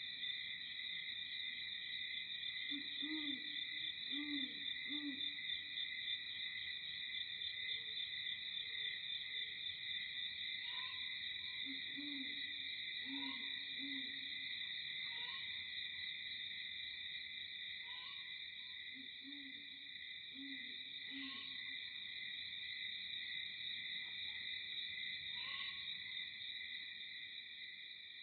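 Steady high-pitched insect chorus, with a bird's low hooting call in groups of three or four notes coming back every several seconds, and a few faint higher chirps.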